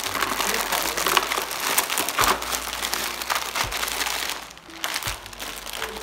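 Glossy gift wrap crinkling and crackling as a large present is pulled open by hand, with a brief lull near the end.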